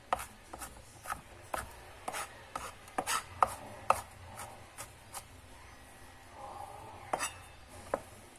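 Chef's knife mincing garlic on a plastic cutting board: sharp knocks of the blade on the board, about two a second, for roughly five seconds, then a pause and two more knocks near the end.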